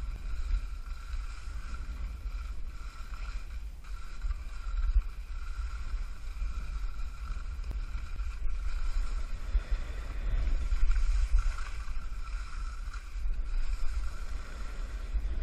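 Wind buffeting the camera microphone on a downhill ski run: a heavy, uneven low rumble that swells and fades, over the hiss of the skis on snow. A faint, steady high whine runs underneath.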